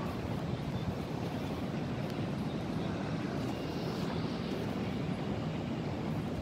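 Wind blowing across the microphone: a steady, low, rushing rumble.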